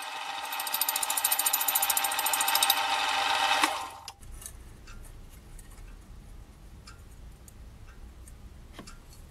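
Slitting saw on a milling machine cutting through brass bar stock: a fast, even, rasping whir of teeth in the metal that stops suddenly about four seconds in. After that only a low hum with a few faint clicks.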